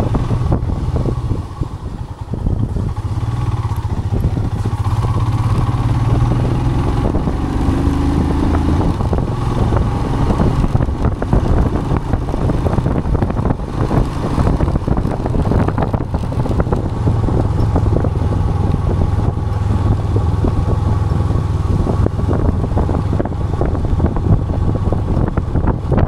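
Royal Enfield Himalayan's single-cylinder engine running steadily while the motorcycle is ridden, dipping briefly about two seconds in.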